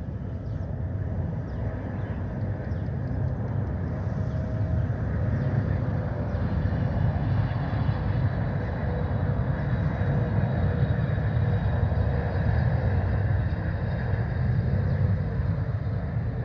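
Boeing 777-300ER airliner on final approach, its two GE90-115B turbofan engines running with a low rumble and a faint whine. It grows louder over the first several seconds as the aircraft nears.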